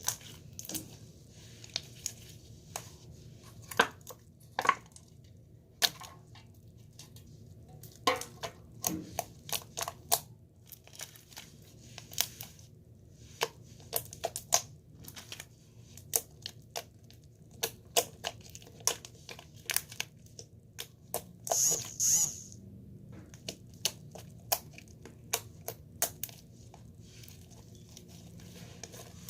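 Slime being squished and poked by hand, giving irregular sharp crackles and clicks, with one longer hissy crackle about three-quarters of the way through.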